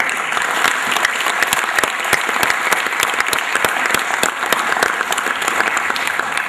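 Audience applause, many people clapping in a dense, steady patter, greeting a speech contestant who has just been introduced. It dies away at the very end.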